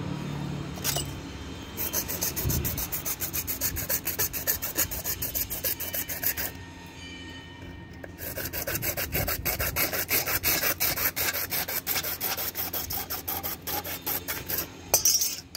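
Hacksaw blade sawing through a short piece of CPVC pipe in quick, even back-and-forth strokes, with a pause of about a second and a half midway. A sharp knock near the end.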